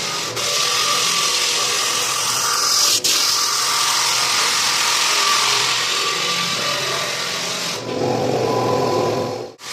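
Floor sanding machine running steadily on hardwood, a continuous grinding rush of abrasive on wood. The sound cuts off abruptly about three seconds in and changes sharply near the end.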